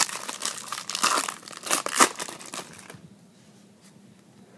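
Foil wrapper of a Topps Chrome baseball card pack being torn open by hand and crinkled, a dense crackling that stops about three seconds in.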